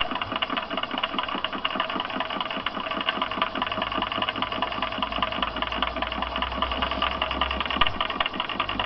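Homemade tin-can walking beam Stirling (hot-air) engine with a diaphragm in place of a piston, running on its burner: a quick, even mechanical clatter.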